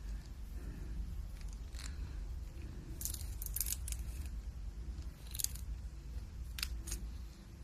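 Light clicks and taps of small metal jewelry-making tools being handled and set down on a bare tabletop: a quick cluster about three seconds in, then a few single clicks, over a low steady hum.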